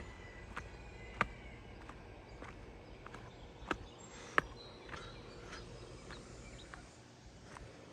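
Quiet outdoor background with faint, short bird calls and a handful of sharp clicks, the loudest two about three and a half and four and a half seconds in.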